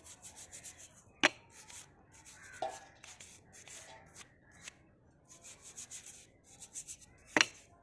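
Toothbrush scrubbing the metal crankcase and cylinder of a disassembled model nitro engine in quick rasping strokes, cleaning the parts. Two sharp knocks come through, about a second in and, loudest, near the end.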